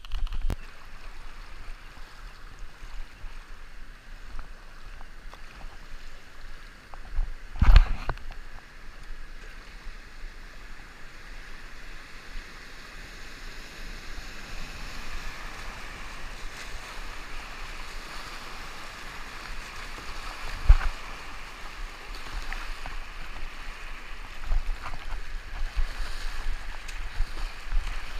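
Fast floodwater rushing around a kayak, with the rush growing louder about halfway through. A few thumps come through it; the loudest is about eight seconds in and another comes near twenty seconds.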